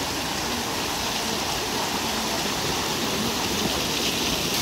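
Floodwater rushing steadily, an even unbroken noise of fast-flowing water.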